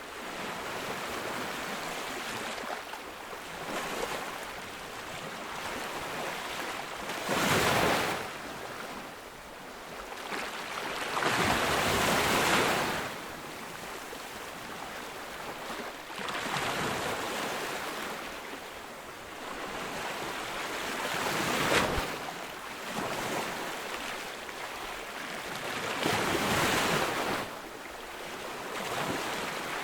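Ocean waves breaking on a beach: a continuous wash of surf with louder crashes that swell up and fall back every few seconds.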